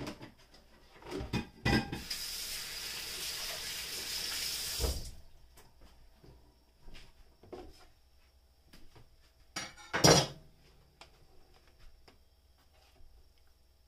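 Dishes clattering, then a kitchen tap running for about three seconds before it shuts off sharply, then another loud clatter of dishes about ten seconds in.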